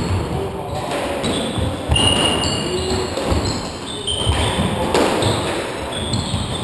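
Squash rally: the ball smacking off rackets and walls in repeated sharp knocks, with short shoe squeaks and footfalls on the wooden court floor.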